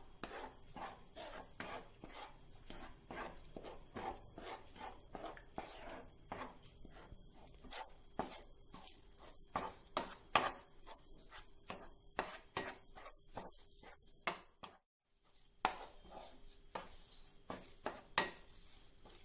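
Spatula scraping and tapping against a nonstick frying pan as rava is stirred into water on low flame and thickens, in faint irregular clicks and scrapes, with a brief silent gap about fifteen seconds in.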